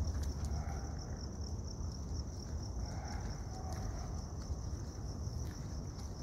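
Crickets chirping in a steady high trill over a low rumble.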